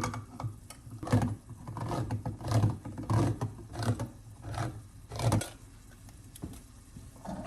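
Hand can opener being cranked around the lid of a tin can: a regular series of clicking, crunching strokes, about one and a half a second, that stops about five seconds in.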